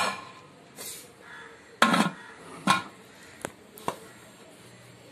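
Metal pressure cooker being handled: about six sharp clinks and knocks spread over a few seconds, the loudest right at the start and about two seconds in.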